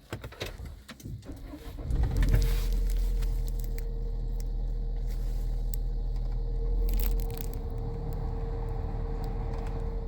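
A few clicks, then about two seconds in the 2021 Nissan X-Trail's engine starts and settles into a steady idle, with a steady hum on top.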